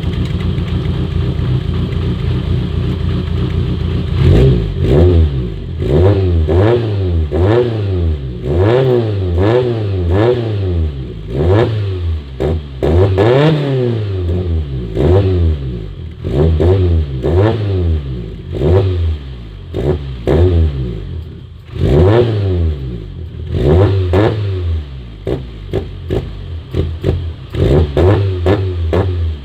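Car engine idling steadily, then revved again and again in quick blips, its pitch rising and falling about once a second from about four seconds in, with sharp clicks among the revs.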